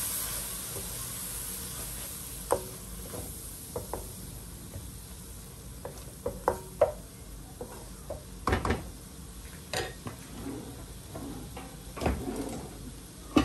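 Onion and spice paste sizzling in a karahi while a wooden spatula stirs and scrapes it, with irregular knocks of the spatula against the pan, the strongest about eight and a half and twelve seconds in.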